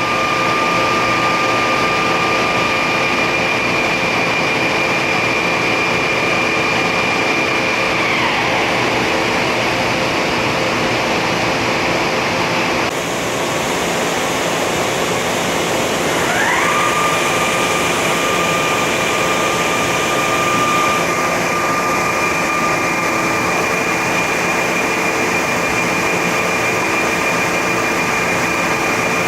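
Leadwell LTC-50BXXL CNC turning center running, with a high spindle whine over a steady machine hum. The whine falls away about eight seconds in as the spindle slows, then rises back up about eight seconds later and holds steady.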